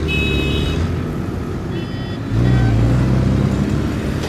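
Road traffic: motor vehicle engines running with a steady low drone that grows louder about two seconds in. A brief high-pitched tone sounds at the very start.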